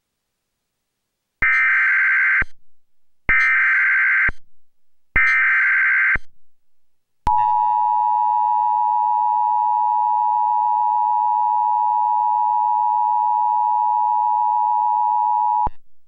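Emergency Alert System alert on a cable TV channel: three one-second bursts of SAME digital header data, then the steady two-tone EAS attention signal for about eight seconds, opening a Severe Thunderstorm Warning.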